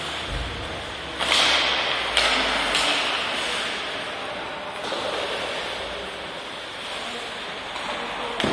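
Ice hockey play in an indoor rink: sticks, puck and skates on the ice, with three sharp slaps in quick succession about a second in, each trailing off in an echoing hiss, over steady hall noise.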